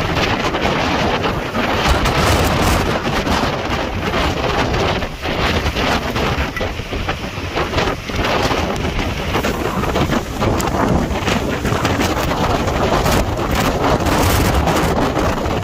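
Hurricane wind blowing hard against the microphone: a loud, continuous rush with irregular gusts buffeting it.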